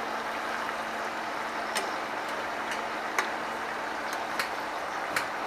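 Steady hiss of food cooking in a pot on a lit gas stove, broken by a few sharp metallic clinks from a steel pot lid and utensils being handled.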